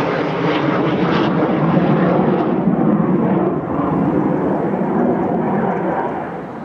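Eurofighter Typhoon jet flying overhead, its twin EJ200 turbofan engines making a loud, steady rushing roar. The sharper hiss drops away about two and a half seconds in, and the noise grows quieter near the end as the jet moves off.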